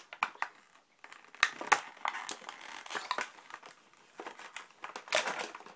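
Toy packaging being opened and handled: irregular crinkling and crackling of plastic and card.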